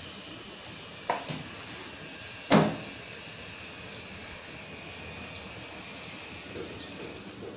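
Pot of water with green beans and potatoes hissing steadily as it heats toward the boil on the stove. Two short knocks come about one and two and a half seconds in, the second the louder.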